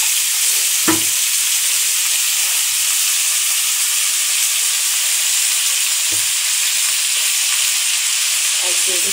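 Sliced radish and radish stalks with cumin seeds frying in oil in a kadai, a steady sizzle. A single light knock comes about a second in, and a softer thud about six seconds in.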